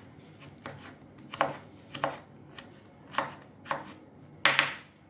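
Kitchen knife slicing ash gourd peel into thin strips on a wooden chopping board: about seven separate cuts at an uneven pace, the last one near the end the loudest.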